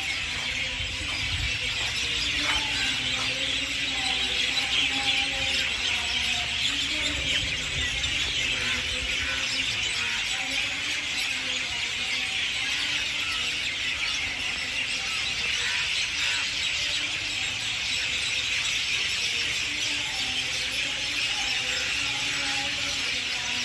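Dense, steady high-pitched chorus from the surrounding trees, with faint lower tones drifting in and out.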